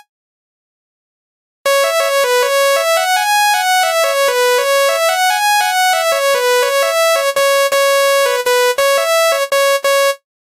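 Electronic basuri bus horn playing a melody of short, steady synthetic notes, mostly a few hundred hertz up, that starts about a second and a half in and cuts off abruptly near the end.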